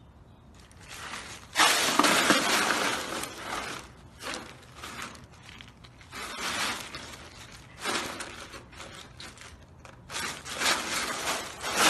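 Ice cubes clattering and crunching in a plastic tub as a husky rolls and wriggles on them. The sound comes in about five bursts with short pauses between, starting over a second in.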